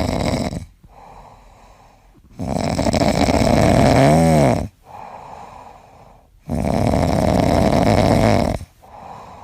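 Loud, rhythmic snoring: a long, rasping breath of about two seconds comes roughly every four seconds, with quieter breaths between them. A brief whistle rises and falls in the middle of the second snore.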